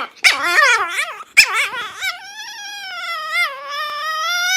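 A pet animal's high, wavering cries: a couple of short calls, then one long drawn-out call of about three seconds whose pitch wobbles up and down.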